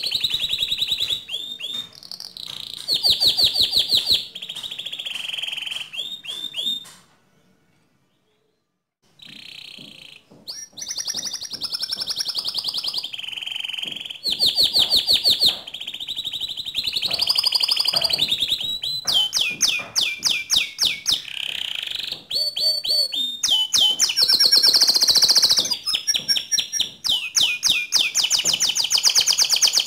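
White domestic canary singing nonstop: long, rapid trills and rolls of repeated high notes, broken by a pause of about two seconds about a quarter of the way in.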